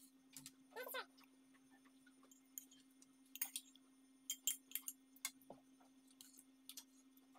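Faint, scattered clicks and clinks of eating utensils against a plate, a dozen or so small sharp sounds, over a steady low hum.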